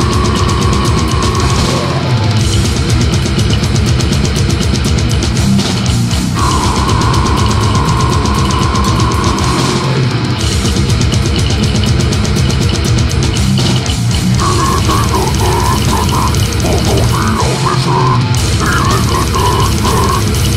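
Brutal death metal: distorted guitars over fast, dense drumming. A high note is held twice in the first half, and a high wavering line runs over the second half.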